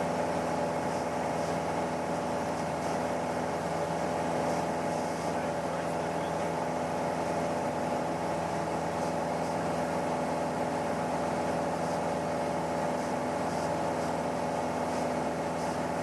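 Twin-engine Cessna's engines and propellers droning steadily in cruise flight, a constant hum of several steady tones over a rushing noise.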